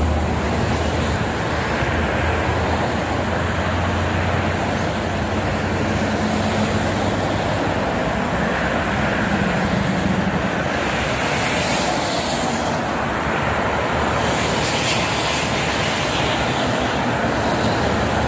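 Steady noise of heavy toll-road traffic passing below: diesel trucks and cars, with tyre noise and a low engine hum that is strongest in the first half.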